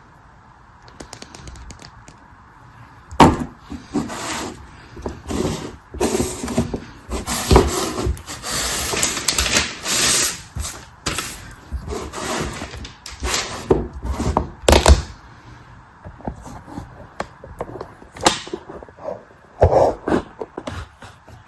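Packaging being handled and opened by hand: irregular bursts of rustling and crinkling with a few sharp knocks, busiest from about three to fifteen seconds in, then sparser.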